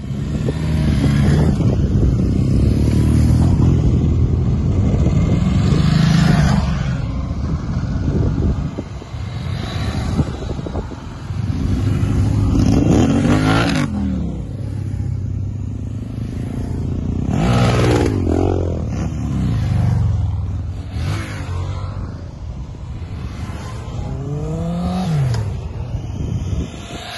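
A group of motorcycles riding past one after another, each engine note rising as it comes near and dropping in pitch as it goes by. The clearest pass-bys come about a third of the way in, around the middle, and near the end.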